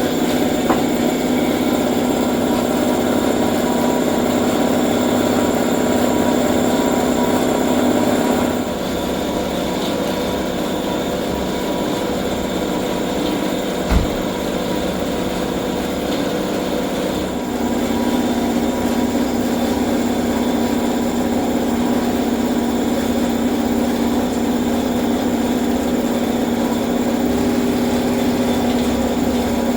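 Car engine running steadily while driving. The engine note drops at about 8 seconds and picks up again at about 17 seconds, with a single sharp knock about 14 seconds in.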